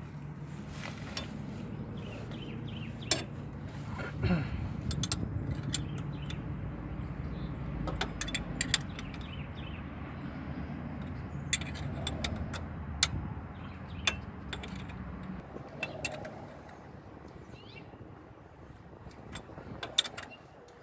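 Steel open-ended wrench clinking against the bolt and bracket while tightening a belt tensioner pulley bolt, with sharp metallic clinks at irregular intervals. A low steady hum runs underneath and fades out about three-quarters of the way through.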